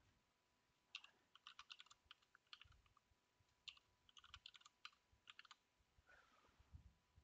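Faint computer keyboard typing in two quick runs of keystrokes, about a second in and again near four seconds: a password typed, then typed again to confirm it.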